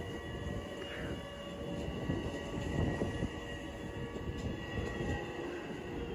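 Long Island Rail Road electric commuter train passing close by: a steady rumble of wheels on the rails, with a faint steady high whine over it.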